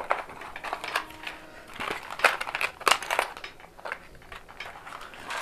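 Plastic crinkling and crackling as hands handle plastic, with scattered small clicks and knocks.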